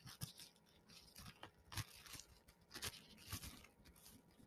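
Faint, irregular crinkling and crackling of cellophane plastic wrap being unwrapped by hand.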